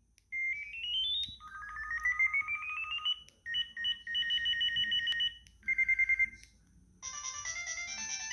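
Samsung SCH-A650PP cell phone playing its preloaded electronic ringtones. First come short beep patterns: a quick rising run of notes, a slower rising sweep over a held tone, pulsed two-tone beeps and a brief trill. Near the end a multi-note melody ringtone begins.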